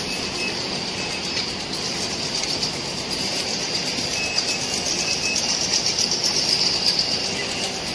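Automatic egg-tray sticker labelling machine and its belt conveyor running, a steady mechanical whirr and rattle with a hiss that grows a little louder in the second half.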